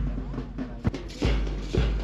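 March music with a steady drum beat, about two beats a second, keeping time for a marching column. A single sharp click cuts in a little before the middle.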